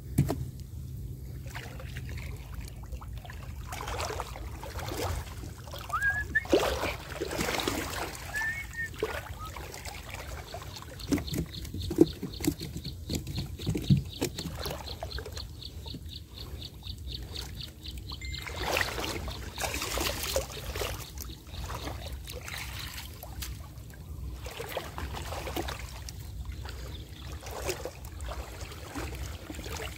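Water sloshing, splashing and dripping as a fine monofilament gill net is hauled by hand up out of waist-deep water, in irregular bursts with each pull.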